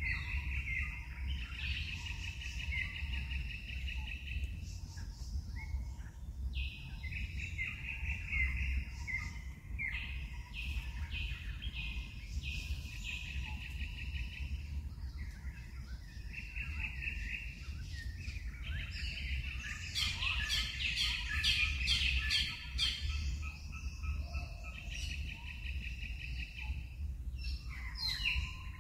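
Wild birds singing in the forest canopy: repeated trilled phrases, busiest for a few seconds about two-thirds of the way through, over a steady low rumble.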